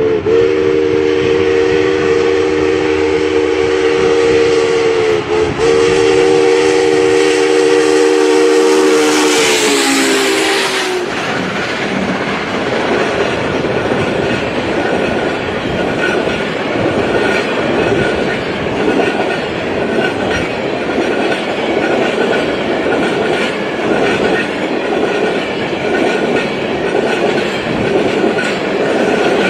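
A locomotive sounds a long signal: a chord of several steady notes with two brief breaks. It sags in pitch and dies away about ten seconds in, under a burst of hiss. The train then runs on with a continuous rumble and the rhythmic clickety-clack of wheels over rail joints.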